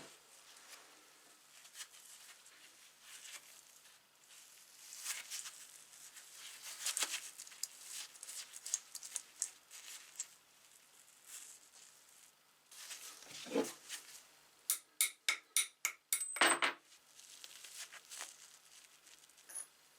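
Small metal parts clinking and scraping, with a quick run of sharp clicks about two-thirds of the way in and a louder clack right after. The parts are most likely those of an antique brass coffee grinder being handled and taken apart.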